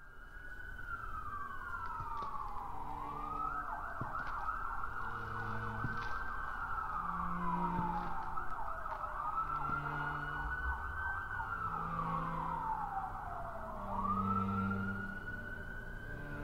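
Siren wailing: the pitch falls slowly, then sweeps quickly back up and holds, repeating about every five or six seconds. Low sustained music tones sound beneath it, changing every second or two.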